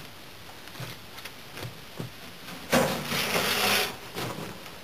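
Footsteps crunching on gravel and brick rubble, with a few light knocks, then a loud rough scraping noise about three seconds in that lasts about a second.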